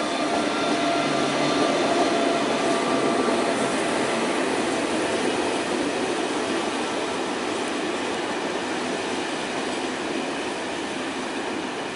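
Train of Corail passenger coaches rolling past, a steady rumble of wheels on rail that slowly fades.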